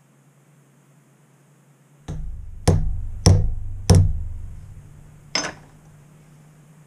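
Hammer tapping the crank onto a small axle pin: three quick strikes about half a second apart, then a fourth after a short pause.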